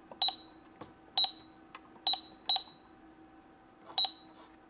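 Keys being punched on a toy cash register's calculator keypad, each press giving a short, high electronic beep: five presses at uneven intervals, entering a price.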